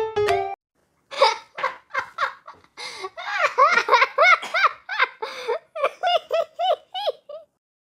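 A high-pitched voice laughing in a long run of short "ha-ha" bursts, each rising and falling in pitch, thinning out near the end.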